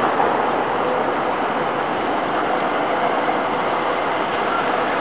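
PCC tram rolling past on street track: a steady rumble and rush of steel wheels on the rails, with a faint thin whine from the wheels now and then.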